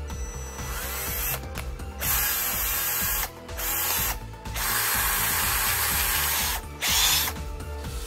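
Aimsak AD414R cordless drill-driver's motor and gearbox whirring in about five short runs as the trigger is pulled and released. The first run builds up gradually and the longest lasts about two seconds. The drill is being tested after repair.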